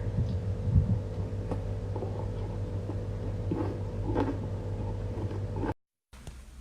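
A person chewing a piece of chewy meat, small scattered eating noises over a steady low hum. The sound cuts off abruptly near the end.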